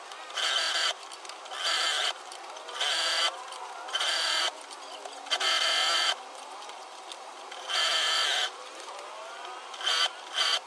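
Industrial single-needle lockstitch sewing machine stitching in short runs of under a second each, about seven in all, with a high whine in each run and quieter pauses between as the fabric is repositioned.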